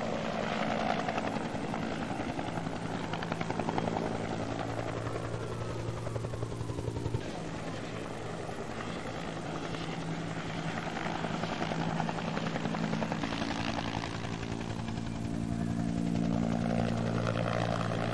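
Helicopter engine and rotor running steadily, a low droning hum that thins about seven seconds in and grows stronger again in the second half.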